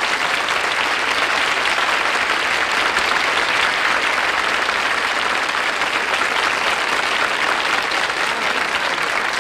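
Studio audience applauding steadily and fairly loudly at the end of a comedy sketch.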